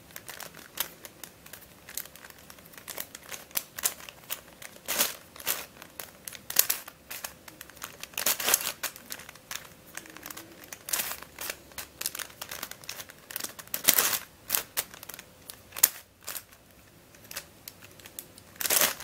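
Plastic layers of a Dayan + MF8 crazy five-layer pentahedron twisty puzzle clicking and clacking irregularly as it is turned by hand to scramble it.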